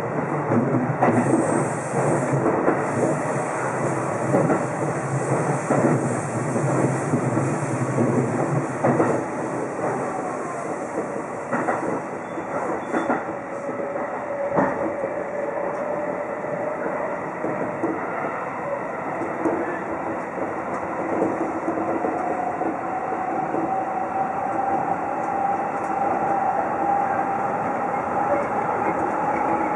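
Seibu 2000 series electric train running, heard from the driver's cab: wheels clattering over rail joints and points through the first third, then a motor whine that climbs slowly in pitch from about halfway as the train gathers speed.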